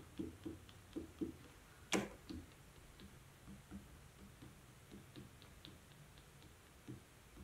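Faint, irregular taps of a marker tip dabbing dots onto paper, a few taps a second, with one sharper click about two seconds in.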